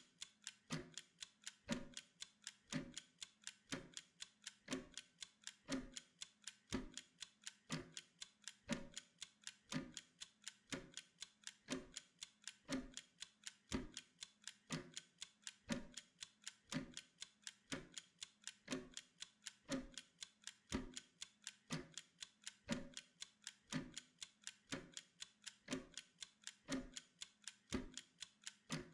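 Mechanical timer ticking steadily for a pomodoro work interval: a fast, even run of light ticks with a heavier tick about once a second.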